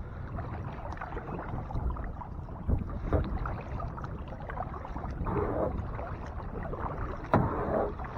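Steady rush of water pouring through a concrete lake drain, with kayak paddle strokes splashing and a few knocks of the paddle against the boat.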